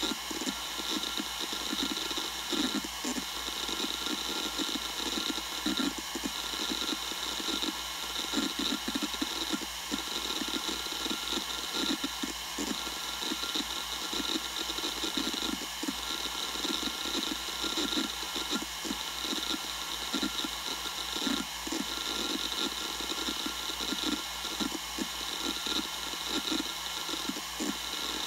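Western Digital Raptor WD1600ADFD 10,000 RPM hard drive spinning with a steady high whine, its heads seeking in rapid, irregular clicks.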